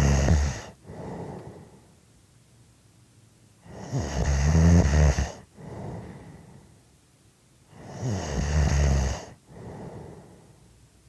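A person snoring in a slow, even rhythm. There is a loud, rattling snore about every four seconds, each one followed by a softer breath and a short quiet pause.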